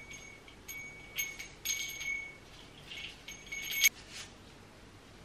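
A small bell ornament ringing several times as it is handled, the same high note each time, with a sharp click near the end.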